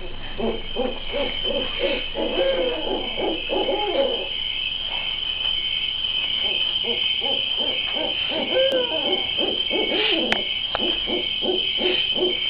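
Long runs of rapid hooting calls, one from the start to about four seconds in and another from about six seconds to the end, over a steady high-pitched whine.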